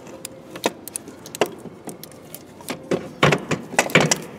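Irregular metallic knocks and clinks as an Opel Corsa C's starter motor is worked loose and pulled out from between the engine and gearbox. The knocks are sparse at first and come thick and fast in the last second and a half.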